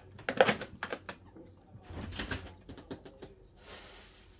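Handling noise from a plastic soy sauce bottle being gripped and set on a kitchen counter: a few light knocks and clicks, the loudest about half a second in, then a soft hiss near the end.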